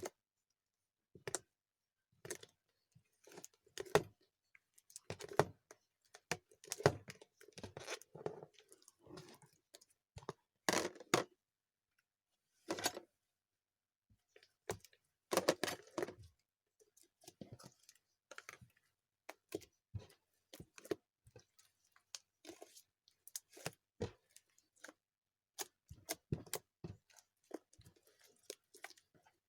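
Slime being worked by hand, with irregular sticky crackles and squelching pops in uneven clusters and short pauses.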